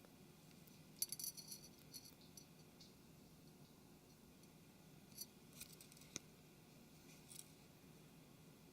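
Near silence, with faint small clicks and taps of hands handling the adhesive and the phone's screen frame: a cluster about a second in, then a few scattered ticks.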